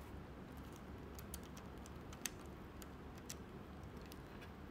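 Light plastic clicks and taps of Meilong 4x4 speedcube pieces being handled and fitted onto the cube's core, a few scattered clicks with the sharpest about halfway through.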